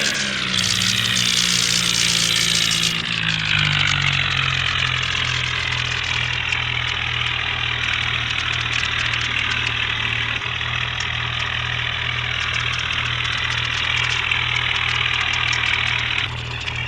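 Heavy vehicle's diesel engine settling from raised revs, falling in pitch over the first three seconds, then idling steadily with an even pulse.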